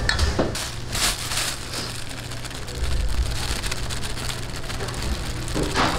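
Wooden chopsticks stirring pork pieces through wet batter in a stainless steel bowl: a wet, patter-like stirring noise with a few louder moments, over a steady low hum.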